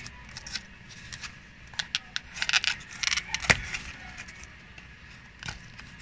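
Small cardboard bearing box being opened by hand: scattered crackling and scraping of the flap and packaging, busiest in the middle, with one sharp click about three and a half seconds in.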